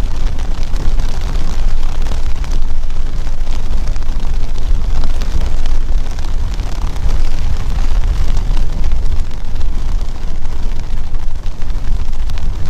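Heavy wind buffeting on the microphone of a bicycle moving at about 40 km/h: a loud, fluttering rumble that drowns out everything else.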